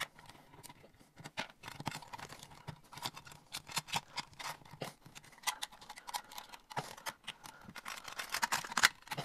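Hands handling an LED light's junction box and its wires: irregular small clicks, taps and rustles, busier and louder near the end.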